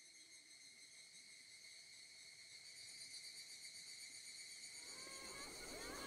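Faint, steady chorus of insects calling in the grass, a continuous high shrill with a slight pulse. About five seconds in, a wider background noise rises under it.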